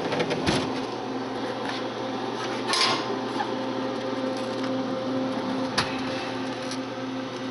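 Plastic soda bottles knocking and clattering against the metal columns of an open vending machine as they are handled, a few sharp knocks over a steady hum.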